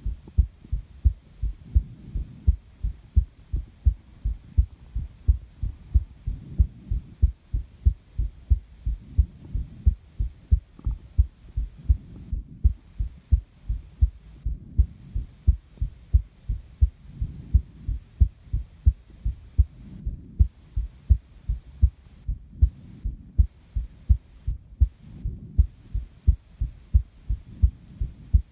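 A person's heartbeat heard close up: low thumps in a steady, even rhythm, with the soft rush of breathing swelling in and out every few seconds.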